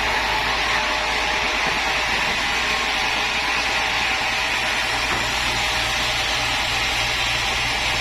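Woodworking machine running steadily with an even whirring hiss and a low motor hum, with no cutting strikes or changes in load.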